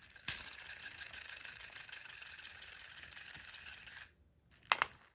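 Keychain fidget spinner toy spun by hand, giving a steady whirring rattle for about four seconds that stops abruptly, followed by a sharp click near the end.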